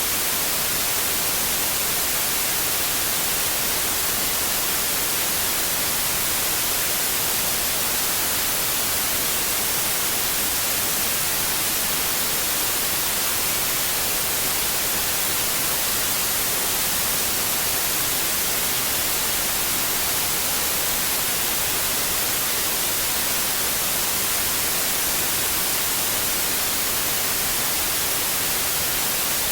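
Steady generated noise: an even, unchanging hiss, strongest in the high treble, with no rhythm or pitch in it.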